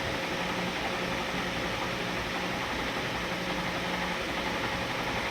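Steady background hiss with a faint low hum running underneath, no distinct events.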